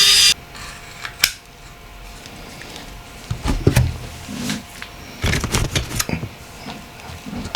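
Small parts of a phone being handled and fitted by hand: scattered light clicks, taps and short scraping rustles of plastic and metal pieces. A loud hiss stops a moment in.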